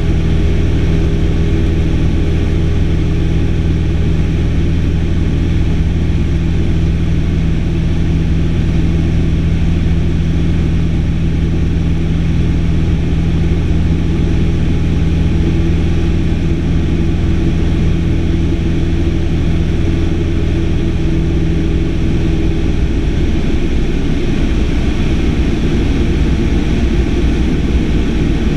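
Single-engine light airplane's piston engine and propeller running steadily in flight, heard from inside the cockpit as a loud, continuous drone. The engine note shifts slightly about three-quarters of the way through.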